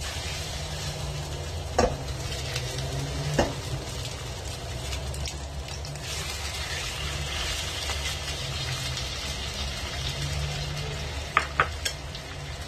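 Marinated pork slices sizzling steadily as they fry in hot oil in a nonstick pan. Sharp clicks of a metal fork against the pan come twice in the first few seconds and twice more near the end.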